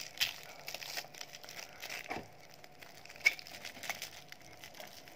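Hands handling crinkly pink craft material and a glue stick: faint crinkling with a few scattered light clicks and taps.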